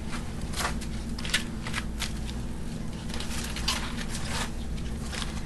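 Crisp romaine lettuce leaves rustling and crinkling as they are handled and laid on a platter: a string of short, sharp crackles over a steady low hum.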